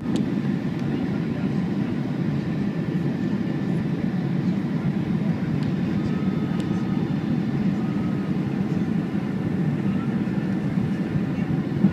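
Steady low rumble of a Boeing 757 airliner in flight, its engines and airflow making an even noise that does not change.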